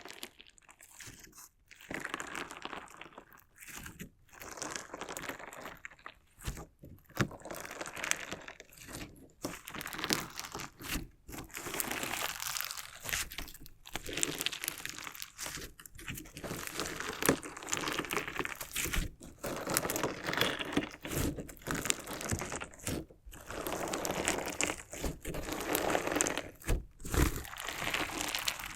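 Crunchy slime mixed with small decorative stones being pressed, cut and worked up close: a dense crackling crunch full of tiny clicks, in bursts broken by short pauses.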